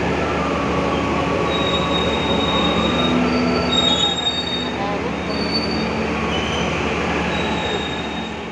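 Passenger train coaches rolling slowly past along a platform: a loud steady rumble of wheels on rail, with thin high wheel squeals coming and going. The sound fades near the end.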